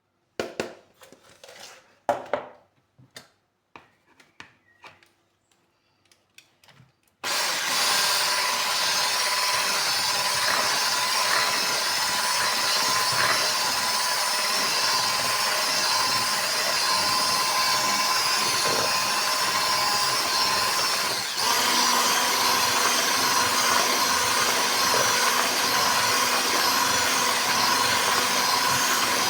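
A few scattered knocks and clicks, then a small electric kitchen appliance motor switches on about seven seconds in and runs steadily with a whine. About 21 s in it changes to a different speed and keeps running.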